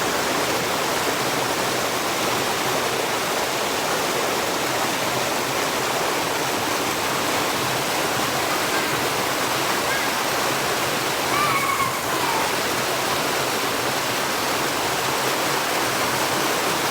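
Waterfall pouring steadily, a constant rushing of falling water. About eleven seconds in a brief high call sounds faintly over it.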